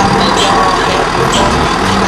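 Mercedes-Benz trial truck's diesel engine running steadily as the truck crawls over rough, muddy ground.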